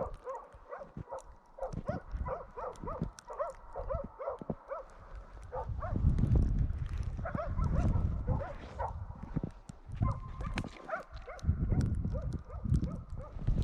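Hunting laika dogs barking steadily and rhythmically in the distance, about two or three barks a second: the bay bark of dogs holding a moose in place. A low rumble of wind on the microphone rises under the barking about halfway through and again near the end.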